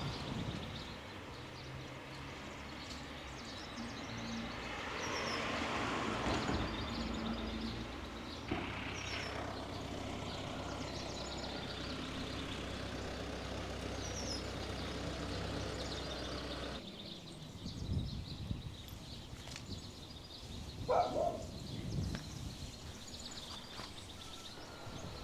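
Outdoor street ambience: a vehicle engine running with a steady low hum, with a few bird chirps over it. The sound changes abruptly twice, and after the second change the hum drops away, leaving quieter ambience with a few brief sounds.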